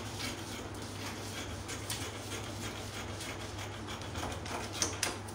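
Paper pattern pieces being handled and slid across a table, with a few faint rustles and light taps, over a steady low hum.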